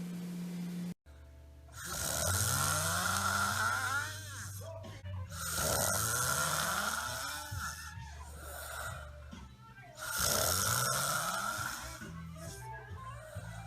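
A person snoring loudly: three long snores about four seconds apart, over music with steady low tones.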